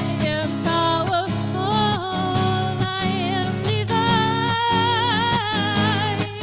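Acoustic guitar strummed steadily under a voice singing long, wavering notes.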